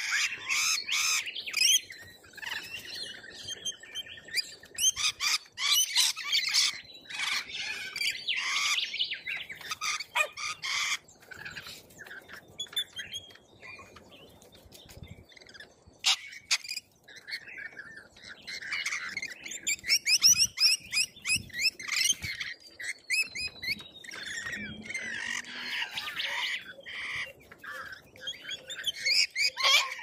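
Flock of corellas and rainbow lorikeets calling at a feeder: a dense, irregular chatter of chirps and squawks, with some wing flapping. It thins out for a few seconds about midway, then grows loud again.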